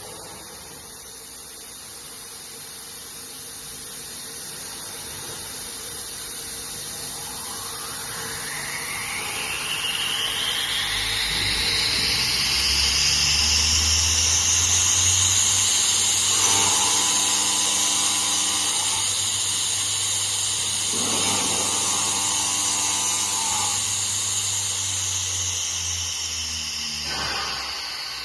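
CNC woodworking machine's saw spindle motor spinning up, its whine rising in pitch over several seconds to a high steady tone, then winding down near the end. Twice partway through, an added buzzing joins it for a few seconds.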